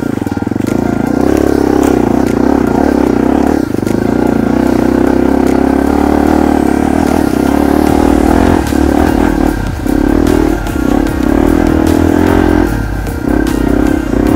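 Dirt bike engine running at high revs under throttle, with the throttle briefly chopped several times in the second half.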